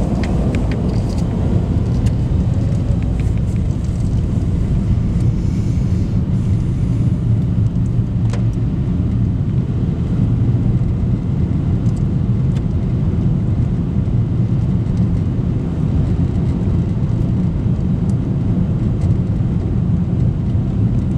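Steady low rumble of a car's engine and tyres, heard from inside the car as it drives through a long road tunnel.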